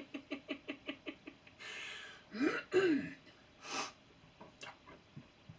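A man's wordless vocal sounds: a fast run of short pitched pulses that fades out, a breath, then two short voiced sounds that rise and fall in pitch, and another breath.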